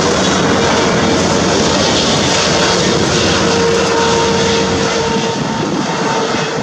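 Boeing 777-300ER's GE90-115B turbofan engines on landing approach: a loud, steady jet roar with a steady whine running through it, easing slightly near the end.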